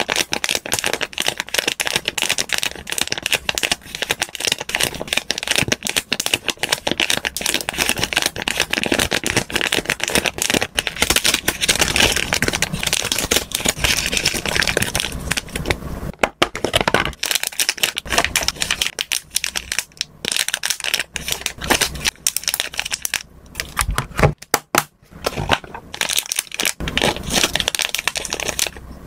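Clear plastic zip-lock snack bags crinkling and crackling under the fingers as they are opened, squeezed and handled, a dense run of small crackles with a couple of brief pauses in the second half.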